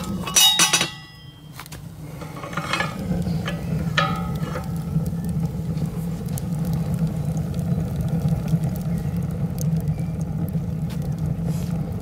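Sheet-steel rocket stove clanking and clinking as wood is handled at it: one loud ringing clank about half a second in, lighter clinks a couple of seconds later. Under it the wood fire burns in the stove with a steady low rumble.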